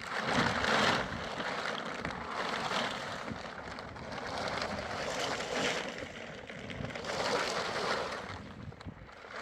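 Gusting wind, a rushing hiss that swells and eases in surges every two to three seconds.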